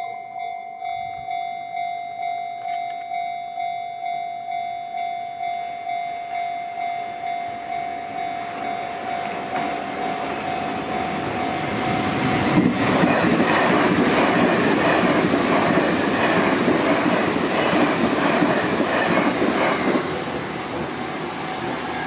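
Japanese railway level-crossing warning bell ringing in a steady repeating ding, about one and a half strikes a second. A train comes up under it, growing louder, and passes loudly from about halfway through until shortly before the end, where the level drops.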